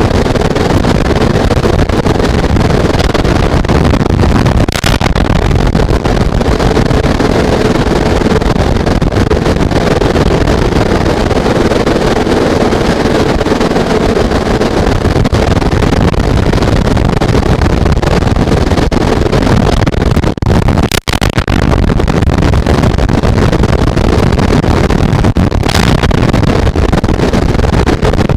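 Heavy rain and wind lashing a falcon nest box and its microphone: a loud, steady rush of noise with a few sharp clicks, briefly dropping out about two-thirds of the way through.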